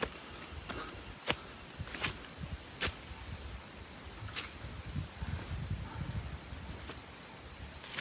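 A steady, high insect buzz from the forest, over footsteps on dry leaf litter with a few sharp twig-like snaps at irregular times.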